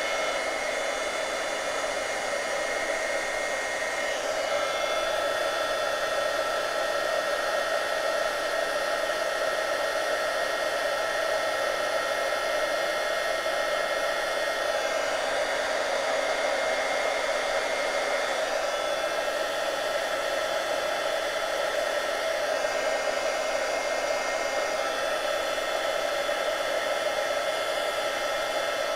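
Handheld embossing heat tool running steadily: an even rush of blown hot air with a high motor whine, aimed at a card to melt white embossing powder.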